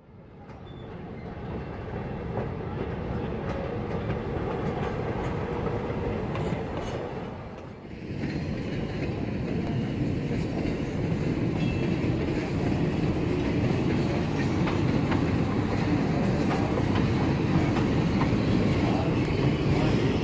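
Leadville, Colorado & Southern passenger train rolling past on the rails, its cars rumbling and clattering. The sound fades in at the start and dips briefly about eight seconds in. It then grows steadily louder as the cars come close.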